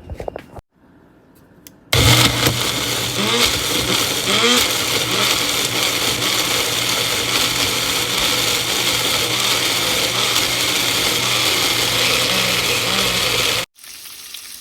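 Electric mixer grinder running, starting abruptly about two seconds in and cutting off suddenly near the end, as it grinds the cooked onion, tomato and cashew masala into a smooth gravy paste.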